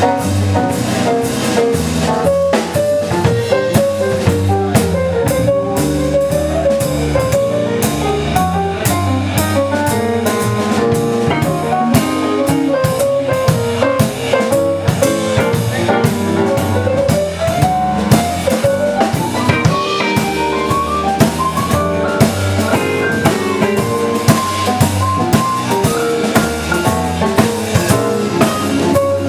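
Band playing an instrumental passage: a drum kit keeps a busy, steady beat with rimshots under a bass line and a lead melody with sliding notes.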